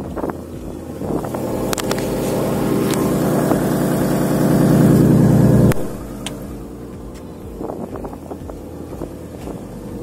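Lexus GS300's inline-six engine running while being checked for an exhaust leak after a fix attempt. It grows louder over several seconds, drops back suddenly a little past halfway, then runs on more quietly, with a few sharp clicks.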